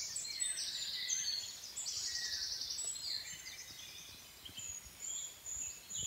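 Dawn chorus of several songbirds singing at once: rapid high trills and whistled phrases overlapping, busiest in the first three seconds and thinning to scattered high notes afterwards.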